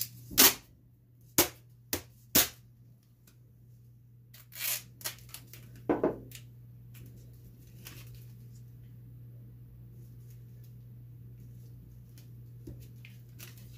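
Duct tape being torn and pulled off the roll: several sharp snaps and short rips in the first two and a half seconds, more rips around five and six seconds in, then only a steady low hum.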